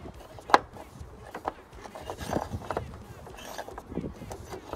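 Scattered metallic clicks and knocks of a hand handling bolts and parts deep in a car's engine bay, with the loudest sharp knock about half a second in, between softer rubbing and rustling.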